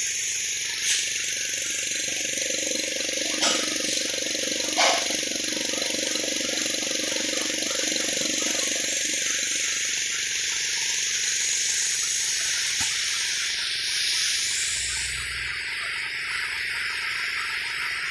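Small electric vacuum pump running steadily with a hiss, drawing vacuum on a capillary viscometer in a bitumen viscosity test. A few light clicks come in the first five seconds.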